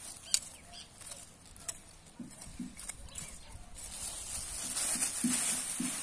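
Small garden trowel scraping and tapping in loose soil, with a few sharp clicks, then a plastic bag rustling as a hand rummages in dry flower heads, the rustle growing louder toward the end.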